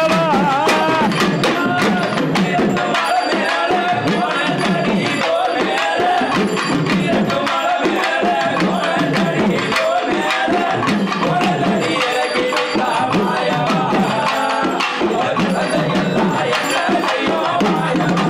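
Several conch shells blown together in long, wavering notes, over a running clatter of percussion.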